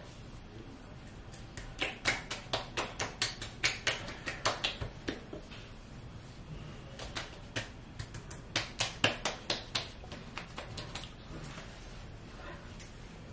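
Hands patting skincare product onto the face and neck: quick light slaps of skin, about four a second, in two runs.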